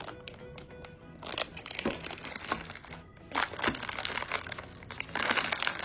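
Plastic toy packaging crinkling and crackling in irregular bursts as it is opened by hand, loudest near the end.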